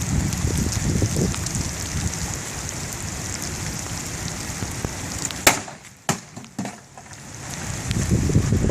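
Steady rain falling, with low rumbling. About five and a half seconds in comes one sharp, loud crack, then a smaller knock half a second later, after which the rain noise drops away for a second or two and then returns.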